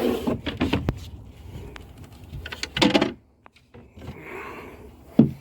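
Sailboat's companionway hatch being opened: wooden knocks and clicks with sliding scrapes, and a heavier thump near the end.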